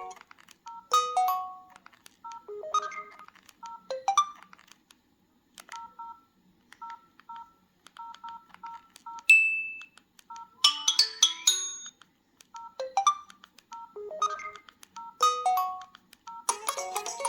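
Preloaded electronic ringtone playing from an LG 328GB phone's speaker. A synthetic melody of short repeated two-note beeps is broken up every few seconds by busier chiming flourishes.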